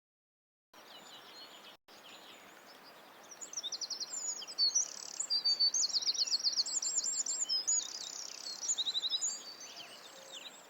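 Small songbirds singing, rapid high-pitched trills and chirps that build to a dense chorus in the middle and thin out near the end, over a steady outdoor hiss. The sound cuts in suddenly just under a second in.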